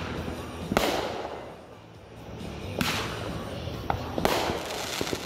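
Consumer aerial fireworks going off: three sharp cracks about a second and a half apart, each trailing into a crackling hiss, with a few smaller pops in between.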